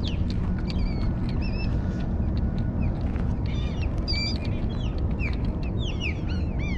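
A flock of seabirds calling over the water, many short, high, arched calls overlapping one another throughout, over a steady low rumble.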